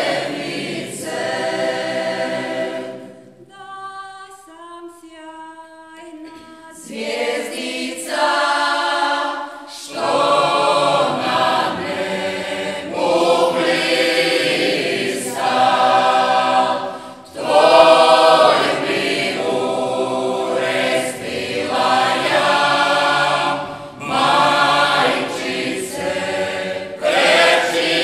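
Mixed choir singing a traditional Marian hymn a cappella in the folk style of the Slunj region. About three and a half seconds in, the full choir drops away and a single voice line steps downward for a few seconds before the whole group comes back in.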